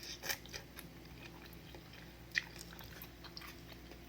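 Close-up mouth sounds of someone eating udon noodle soup: wet chewing and smacking clicks, with sharper ones about a third of a second in and again past two seconds. A faint steady hum sits underneath.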